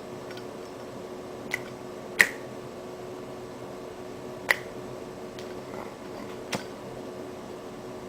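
Four sharp metal clicks from a Zippo lighter being handled, its hinged lid snapping, the loudest about two seconds in, over a faint steady hum.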